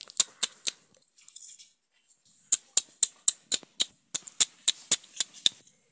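A run of short, sharp clicks, about four a second: three near the start, then a steadier string from about halfway through, as toy dolls are pretend-fed with a plastic spoon and cup.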